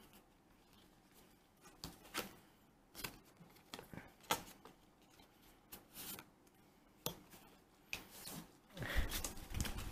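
Faint, scattered clicks and soft taps of trading cards being handled and laid down on a playmat, with a few denser knocks near the end.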